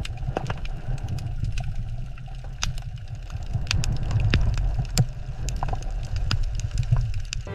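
Underwater ambience: a steady low rumble with sharp clicks and crackles scattered through it.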